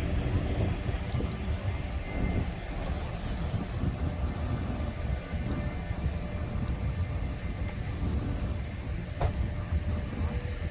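Steady low rumble of vehicle noise, with a single sharp click about nine seconds in.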